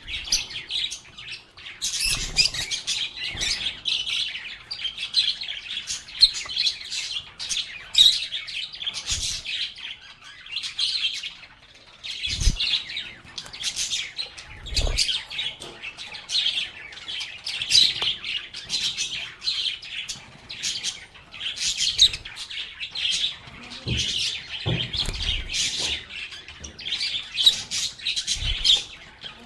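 A group of lovebirds chirping and chattering continuously, dense rapid high calls overlapping one another, with a few short low thumps scattered among them.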